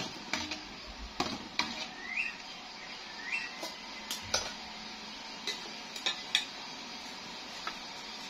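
Metal ladle clinking and knocking against an aluminium pan of palm-sugar syrup as the syrup is ladled out for straining, a scatter of light irregular clinks. Two short rising chirps sound about two and three seconds in.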